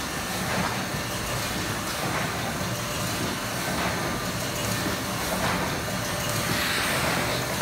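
Zander HHS 2 machine running, a steady mechanical noise with faint irregular clicks.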